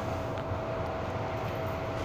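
Steady hum inside an MTR M-Train passenger car: a constant mid-pitched tone over a low rumble.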